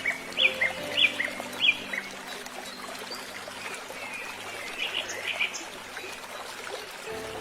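A bird calling repeatedly in short, sharp chirps that fall in pitch, about two a second at first, then a looser cluster past the middle, over background music with long held notes.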